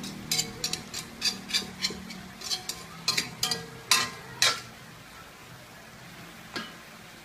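Metal cooking utensil scraping and clinking against a stainless steel pan while chopped turkey meat is stirred: a quick run of strokes for about four and a half seconds, then one more near the end.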